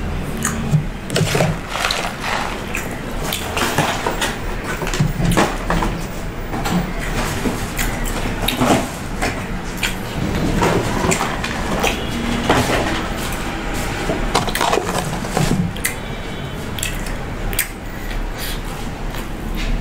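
Close-miked eating and handling sounds: many small crisp crackles and light knocks as crunchy fried chicken is chewed and cardboard food boxes are moved about on a glass table.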